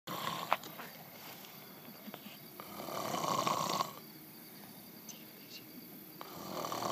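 A man snoring open-mouthed in his sleep: one long snore swells up about three seconds in and another begins near the end, with a sharp click about half a second in.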